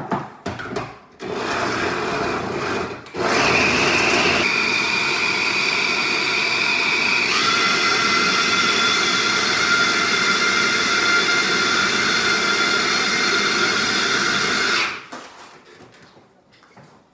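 Electric blender puréeing chunks of raw red kuri squash with a little water: a short run of about two seconds, a brief pause, then a steady run of about twelve seconds whose motor tone shifts twice before it switches off near the end.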